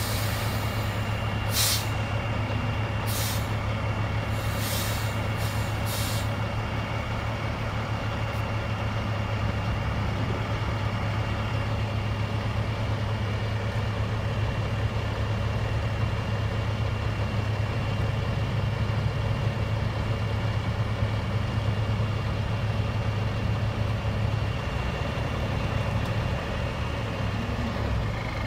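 Heavy diesel tow trucks' engines running steadily, with a faint steady high whine. There are several short hisses of air in the first few seconds.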